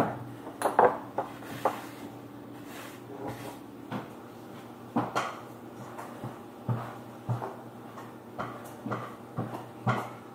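Homemade glue slime being stretched, squished and pressed against a tabletop by hand, making irregular sticky pops and clicks, about a dozen over the stretch, over a faint steady hum.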